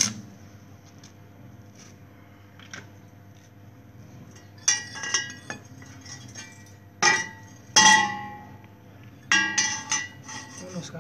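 A brief crackle of a stick-welding tack at the very start, then the steel square-tube frame clanking and ringing as it is handled and knocked: several sharp metallic strikes in groups about five, seven to eight, and nine to ten seconds in.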